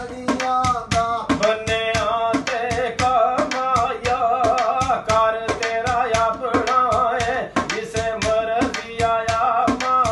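Punjabi tappe and mahiye folk singing over a hand drum played in quick, even strokes, with a wavering sung melody.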